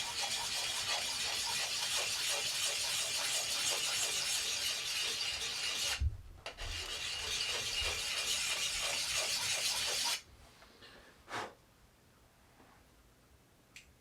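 Hand-held Work Sharp abrasive stroked rapidly along the edge of a vintage Belknap double bit axe, rasping steadily as it grinds out nicks at a coarse grit. The scraping breaks off briefly about six seconds in, resumes, and stops about ten seconds in.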